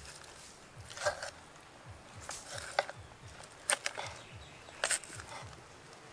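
Cleaver blade slicing into a pig ear's skin and cartilage on a wooden board: about five short, crisp cuts, roughly a second apart, the sharpest two near the end.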